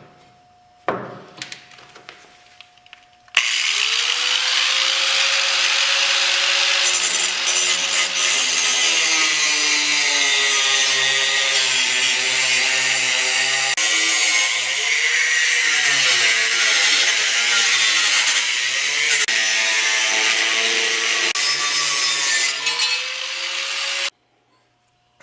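Power cut-off wheel ('death wheel') cutting through the LS engine's steel windage tray to trim it for an aftermarket oil pan. The motor's pitch sags and recovers as the wheel bites, and the cutting stops suddenly near the end. A couple of knocks come before it starts, a few seconds in.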